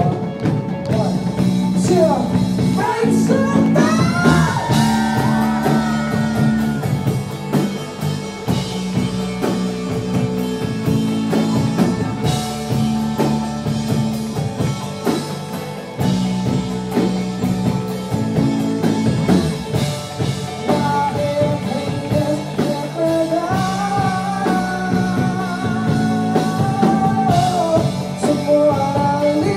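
Live rock band playing a song: drums, electric guitar and an electric bass holding long notes, with a sung melody above.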